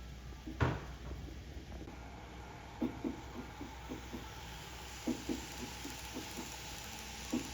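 N-scale model train running on its track: a single knock about half a second in, then soft clicks in pairs every two seconds or so over a steady hiss.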